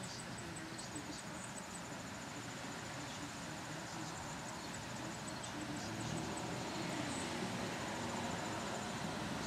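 High, rapid insect chirping, several short pulses a second, in runs that stop and start, over a steady outdoor hiss. A low rumble swells in the last few seconds.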